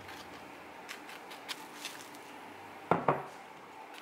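Faint handling sounds in a kitchen: a few light clicks, then a short, louder double knock about three seconds in.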